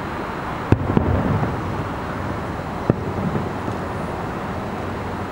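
Distant aerial firework shells bursting: one sharp boom under a second in and another about three seconds in, each trailing off in a low rumble, over steady outdoor background noise.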